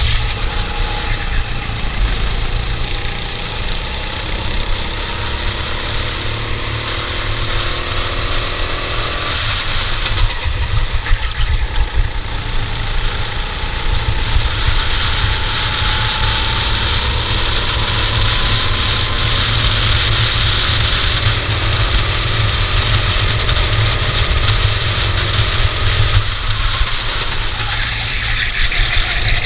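Cadet racing kart engine running under throttle. Its pitch climbs slowly twice, along the straights, and drops off sharply about nine seconds in as the driver lifts for a corner. A heavy low rumble of wind noise sits underneath.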